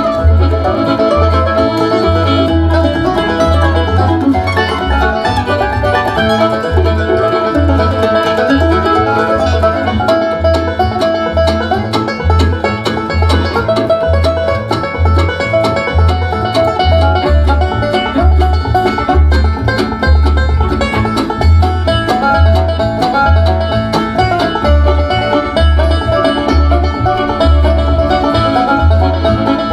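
Music played through a TCL S642W 2.1 soundbar and its subwoofer, with a steady, regular bass beat under a busy mix of instruments.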